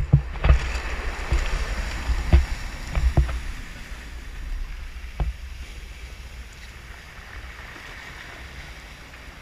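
Surf breaking and washing over rocks, with wind buffeting the microphone as a low rumble, and a few sharp knocks in the first few seconds. The wash fades to a quieter steady hiss after about four seconds.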